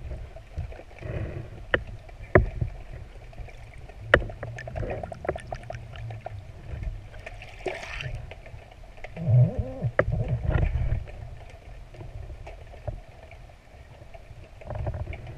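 Underwater sound heard through a GoPro's waterproof housing: a low rumble of moving water with scattered sharp clicks and knocks, a brief rushing hiss about eight seconds in, and heavier low thumps a second or two later.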